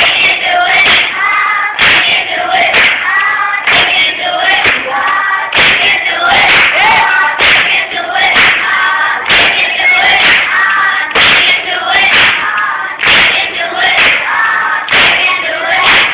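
Choir singing a song, with a sharp percussive beat, such as claps, keeping time about once a second.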